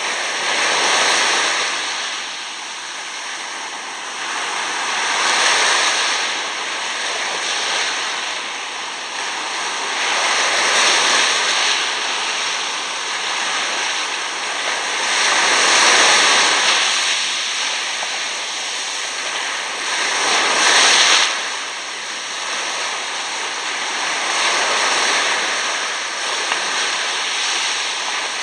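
Shallow surf washing up over sand and draining back, a steady hiss of water and foam that swells every five seconds or so.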